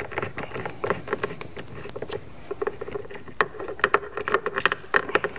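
Irregular small clicks and scratches of a hand Torx T25 screwdriver turning two screws out of a door pull-handle recess, with the screws rattling in the fingers as they come free.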